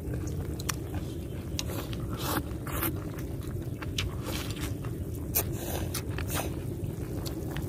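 Eating sounds: chopsticks clicking and scraping against small bowls, with slurping of rice noodles and broth, over a steady low rumble.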